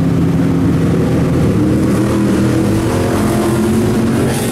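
Turbocharged Nissan 240SX drift car's engine running at low revs as the car pulls slowly past, a loud steady exhaust drone whose pitch steps up slightly about a second and a half in.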